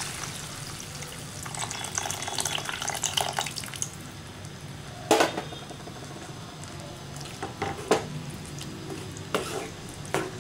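Tamarind water poured into a hot pan of fried bitter gourd and spice paste, hissing as it hits the pan. A wooden spatula then stirs the gravy and knocks against the pan a few times, the loudest knock about five seconds in.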